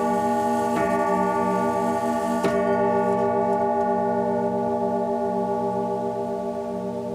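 Howard Miller Concerto grandfather clock movement striking the hour on its chime rods: two hammer strikes under two seconds apart, the last two of a three o'clock count. After the last strike the rods ring on and slowly fade.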